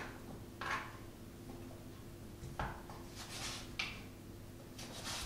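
Kitchen knife chopping butternut squash on a plastic chopping board: about five separate knocks of the blade through the flesh onto the board, roughly a second apart.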